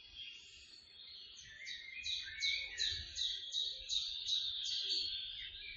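Wild birds calling and chirping. One bird gives a run of about ten high, falling notes, roughly three a second, from about a second and a half in until about five seconds.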